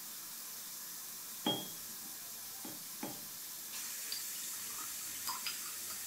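Milk poured from a small cup into a ceramic mug, a soft pouring hiss that grows louder a little past halfway. Before it comes one clear ceramic clink, about a second and a half in, followed by a couple of lighter knocks.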